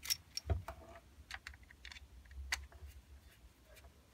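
Light, irregular clicks and taps of a scooter's plastic speed-controller box and wiring connectors being handled, with a soft thump about half a second in.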